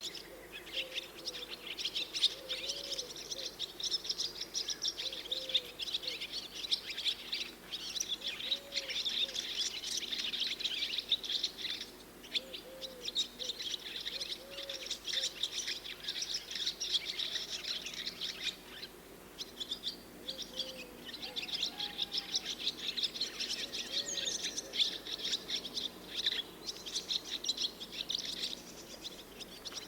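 A flock of swallows twittering and chattering almost without a break, easing off briefly twice. Underneath, a lower soft call repeats every couple of seconds.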